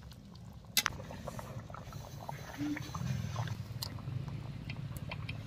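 Metal spatula stirring a simmering fish curry in a metal kadai, with scattered light clicks and scrapes of the spatula against the pan over a low steady rumble.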